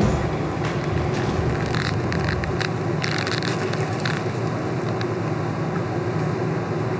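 Steady hum of a commercial kitchen's ventilation, with several brief crinkles of foil burger wrappers being handled during the first four seconds or so.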